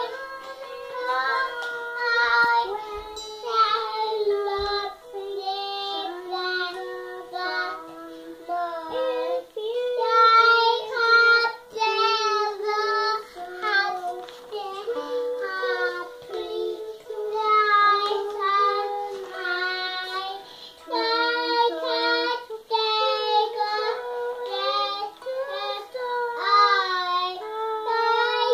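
A young girl singing a song in a child's voice while plucking a Kinder Harp, a small wooden children's lyre, as accompaniment.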